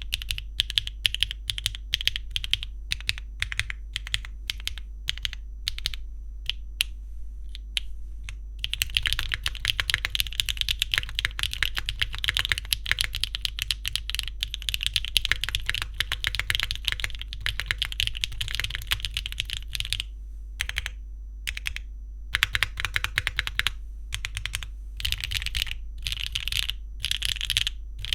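Typing on a Neo65 Cu gasket-mount mechanical keyboard with a PP plate and case foam, HMX Sunset Gleam linear switches and Cherry-profile double-shot ABS keycaps. Separate keystrokes come first, then fast continuous typing from about nine seconds in, then bursts of typing with short pauses near the end.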